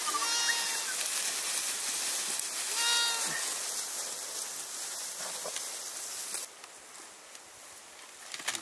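Sheep bleating twice, once near the start and once about three seconds in, over a loud steady hiss that cuts off abruptly near the end.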